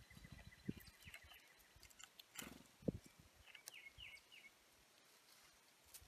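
Faint bird calls: a few short chirps about a second in, then a run of four quick descending notes about two-thirds of the way through, over quiet outdoor ambience with scattered soft clicks.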